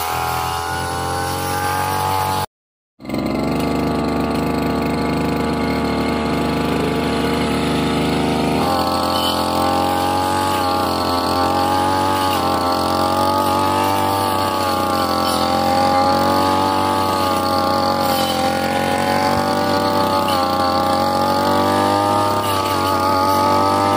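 Backpack brush cutter's small petrol engine running steadily, its pitch wavering slightly as the circular blade cuts through grass and saplings. The sound drops out for about half a second, two and a half seconds in.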